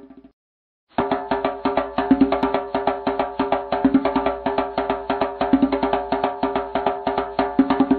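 Background music with a fast, even percussive beat over steady held notes. It cuts out briefly just after the start, then comes back.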